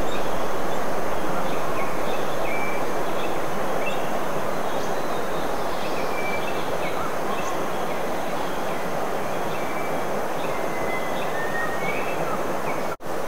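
Tropical rainforest ambience: a loud, steady rushing noise, with a thin high insect whine and scattered short bird notes over it. The sound breaks off for an instant near the end.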